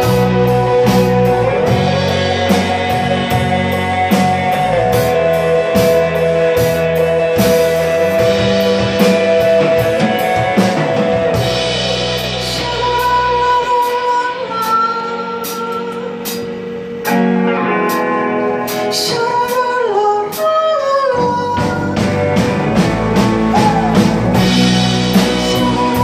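A live rock band plays electric guitars, bass guitar and drum kit under a male lead vocal. Partway through, the bass and drums drop away to a sparser guitar passage with sliding notes. The full band then comes back in.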